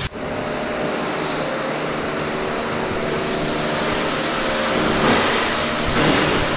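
Steady hiss of a hot-water hose spraying onto the aluminum walls and floor inside a livestock trailer to thaw it out. A low steady hum sits underneath, and the spray grows a little louder about five seconds in.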